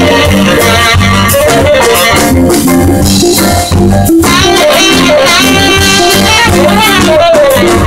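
Live jazz band playing loudly: a saxophone lead line over a walking bass and drum kit.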